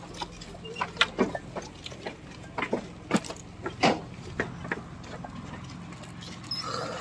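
Irregular sharp clacks and knocks as fired bricks are carried in rope slings over a bamboo-slat ramp, over a steady low hum.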